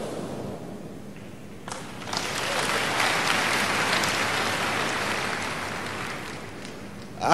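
A congregation applauding, the clapping starting about two seconds in, swelling and then dying away.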